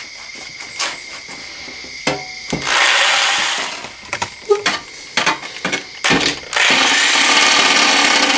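Corded reciprocating saw cutting a notch into a motorcycle skid plate. There is a short burst of cutting about two and a half seconds in, then a few knocks and clicks as the blade is set against the plate again, then a longer steady run of cutting from about six and a half seconds.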